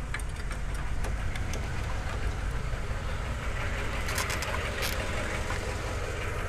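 A steady low engine-like rumble in the background, with a few sharp plastic clicks about four to five seconds in as wiring and zip ties are handled.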